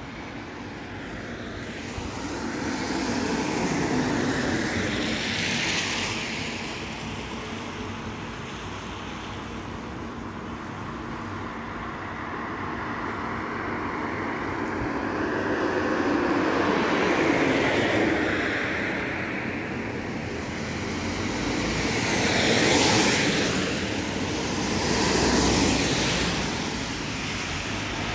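Cars driving past on a wet road, the tyre hiss swelling and fading with each car over a steady traffic hum, four passes in all.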